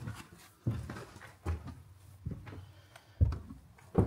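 Footsteps climbing stairs: a steady series of dull thuds, about one step a second, on a hard indoor staircase.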